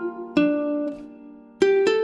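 Ukulele in standard G-C-E-A tuning picking a single-note melody: four plucked notes, each left to ring and fade, the second softer and the last two close together near the end.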